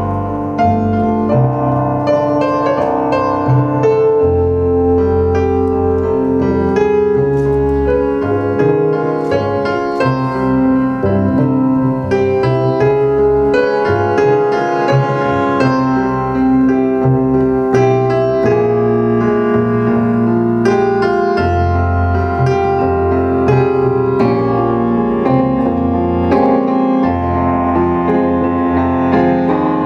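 Live instrumental music: a clarinet playing a flowing melody of held notes over a plucked double bass line.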